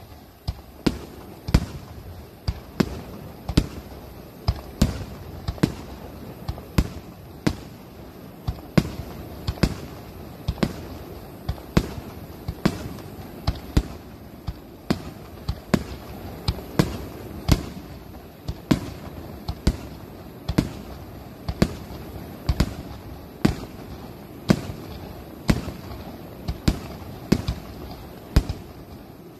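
Fireworks display: aerial shells bursting one after another, a sharp bang every second or so, over steady background noise.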